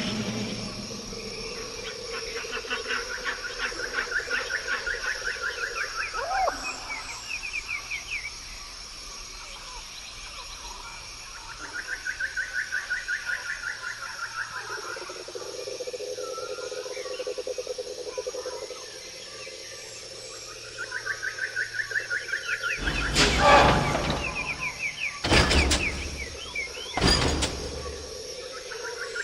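Forest ambience from an Endor soundscape: fast, pulsing trilled calls, bird-like, that rise and fall in pitch and come back every few seconds over a steady high hiss like insects. About 23 seconds in, a few sharp knocks break in.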